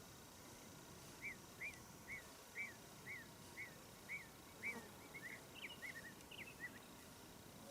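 A bird singing against a faint background: a run of about eight evenly spaced chirps, then a quicker jumble of notes.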